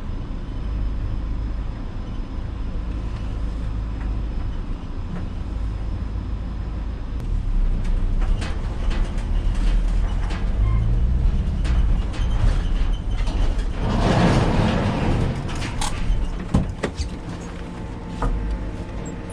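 Vehicle engine running steadily with a low hum, rising in pitch around ten seconds in, then a burst of hissing noise about fourteen seconds in and a few knocks near the end.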